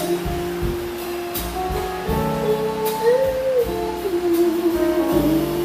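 Small bossa nova band playing: a woman's sung melody in long held, wavering notes over acoustic double bass, piano and drum kit.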